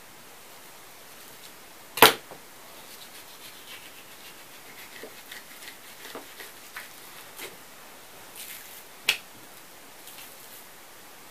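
Fillet knife scraping lightly against a cutting board as pike fillet is cut free of its skin, with light ticks throughout and two sharp knocks on the board, one about two seconds in and another near the end.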